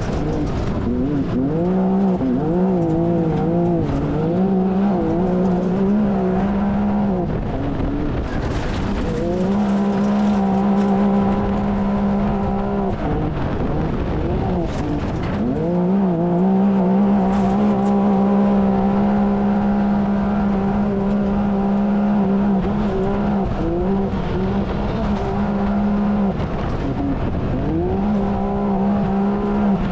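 Can-Am Maverick X3's turbocharged three-cylinder engine running hard at a steady high pitch, heard from inside the cab. Several times the pitch drops briefly and climbs back as the throttle comes off and on again, over a constant rush of wind and dirt.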